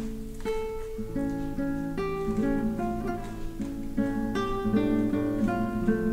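Background music: an acoustic guitar playing a melody of plucked notes.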